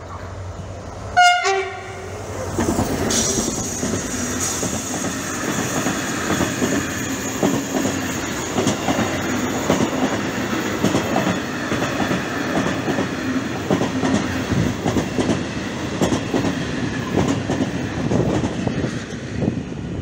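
A freight train locomotive gives one short horn blast about a second in, a driver's greeting toot. The train then passes close by, with a steady rumble and the rhythmic clickety-clack of the freight wagons' wheels over the rail joints.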